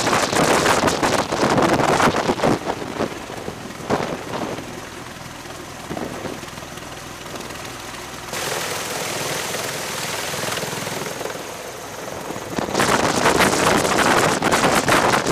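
MV-22 Osprey tiltrotor's proprotors and turboshaft engines running loud as it lifts off, with rotor wash buffeting the microphone. It drops after about two and a half seconds to a quieter steady wind-and-distant-rotor noise, then comes back loud near the end with an Osprey's rotors turning close by.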